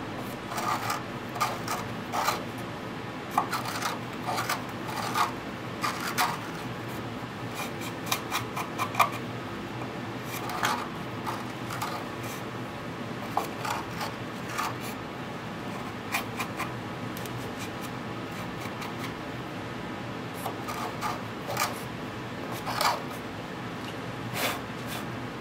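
Small hand reamer scraping and twisting in drilled holes in a plywood engine box, deburring the hole edges. Short, irregular scrapes come and go over a steady room hum.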